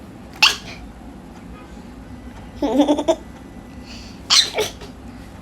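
A cartoon toddler character hiccuping: three short vocal 'hic' sounds a second or two apart, the middle one a little longer.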